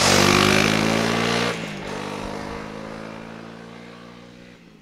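Honda CRF300L single-cylinder four-stroke motorcycle engine running close by and loud, then dropping sharply about a second and a half in and fading steadily as the bike moves away.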